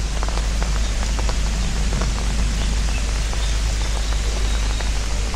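Steady rain falling, with scattered drops ticking sharply close to the microphone over a constant low rumble.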